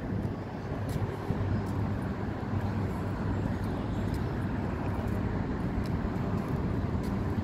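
Steady low rumble of distant road traffic from a busy multi-lane highway bridge.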